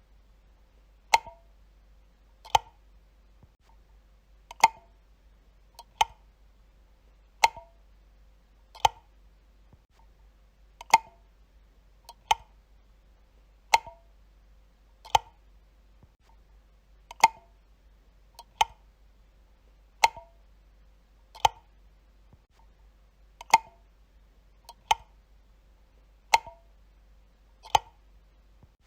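Light switch being flipped again and again: a sharp click every one and a half to two seconds, each followed a fraction of a second later by a softer second click.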